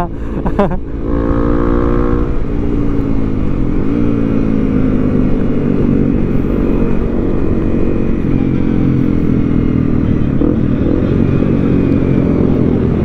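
Honda CRF250 Rally's single-cylinder engine running steadily under way, heard from the rider's seat. Its revs dip briefly and climb back about four seconds in.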